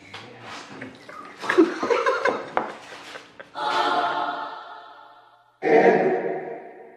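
Two men laughing hard with mouth-opener mouthpieces holding their mouths open, followed by two held choir-like musical chords, each fading out over about a second and a half.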